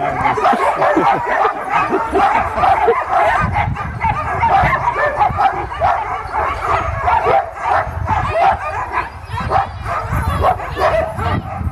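Many sled dogs barking and yipping at once in a continuous, overlapping chorus. This is the excited clamour of sled dogs keyed up before a run.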